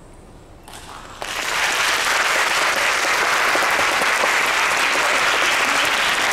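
Audience applauding, breaking out about a second in after a quiet pause and then holding steady.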